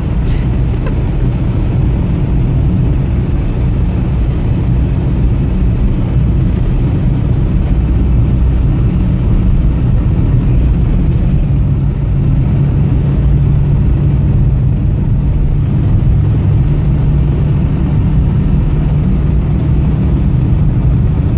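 Engine and road rumble inside the cabin of a Soviet/Ukrainian-built car driving on a rough road. It is loud and steady, and a steadier engine hum becomes prominent about halfway through.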